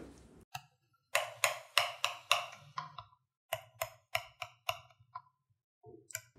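A spoon clinking against the side of a glass mixing bowl while stirring a thick marinade: quick, even taps, about three a second, in two runs with a short pause between.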